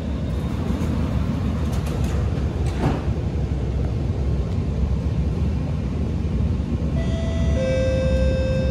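Alstom Movia R151 MRT train heard from inside the car, pulling away and running with a steady low rumble of wheels on rail. Near the end a few steady electric tones come in and step in pitch.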